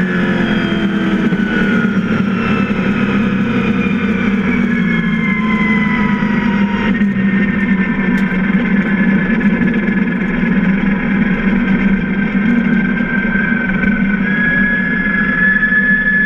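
Stock car engine heard from inside the cockpit, its revs falling away over the first few seconds and then running steadily at low revs as the car rolls slowly. A thin high whine rides over it and rises again near the end.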